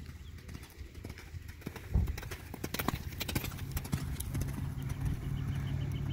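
Hoofbeats of a horse cantering on a sand arena, loudest as it passes close by about two to three and a half seconds in. A steady low hum joins in about halfway through.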